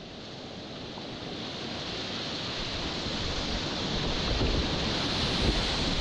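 Doncaster River rapids at low water: a steady rushing hiss of whitewater that grows steadily louder, with low rumbles on the microphone around the fifth second.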